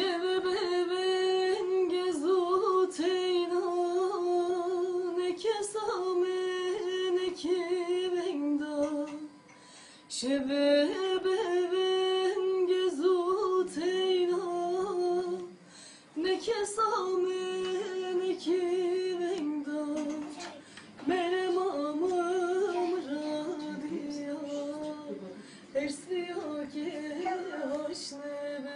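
A woman singing a Zaza folk song (türkü) solo, with no instruments: long held notes with wavering ornaments, in phrases separated by short breaths.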